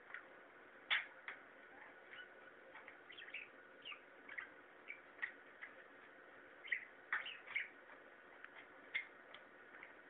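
Small caged parrot giving short, scattered chirps, with a few sharp clicks among them.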